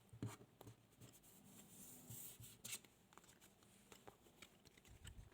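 Near silence: room tone with a few faint clicks and a brief soft rustle.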